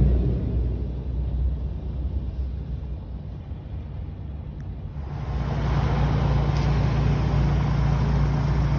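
Low rumble of a road vehicle in motion, heard from inside it. About five seconds in it gives way to louder, steadier street noise with a low hum.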